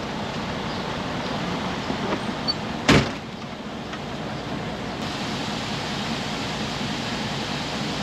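Truck cab door slammed shut once, about three seconds in, over the steady idle of the truck's engine.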